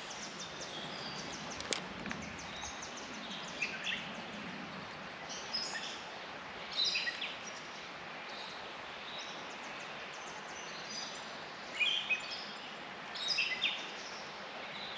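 Steady rush of river current flowing, with a small bird chirping in short phrases several times over it, loudest about midway and again near the end.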